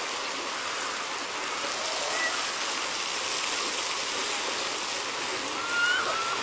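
A jet of water spraying and splashing steadily onto an elephant and into its pool, a constant hiss of falling water. A couple of short high calls sound over it, one about two seconds in and another near the end.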